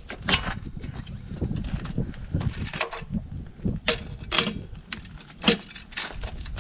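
Sharp metallic clicks and clinks from a torque wrench and socket being worked onto a semi-truck wheel's lug nuts as the wheel is torqued back on. There are several irregular clicks, the loudest about half a second in and about five and a half seconds in.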